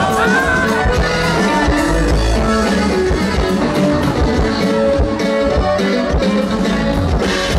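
Live norteño band playing with a steady beat: accordion, bajo sexto and drum kit, mostly instrumental.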